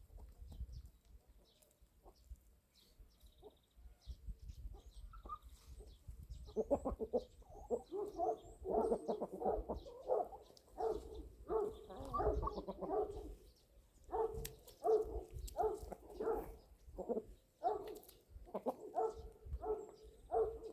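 Chickens clucking in a quick, repeated series, about two calls a second, starting about six seconds in. A few faint high bird chirps come before it.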